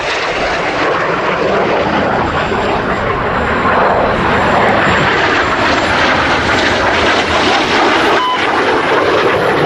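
BAE Hawk T1 jets flying a display pass: a loud, continuous jet rush that grows a little louder about four seconds in.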